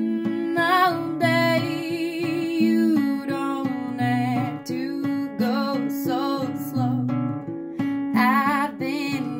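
A woman singing to her own acoustic guitar: steady chords on the guitar, with several short sung phrases whose held notes waver in vibrato.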